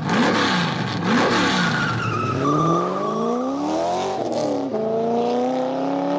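Car engine revving. Its pitch rises and falls twice quickly, then climbs steadily through the middle and drops sharply just before the five-second mark, like a gear change, before climbing again.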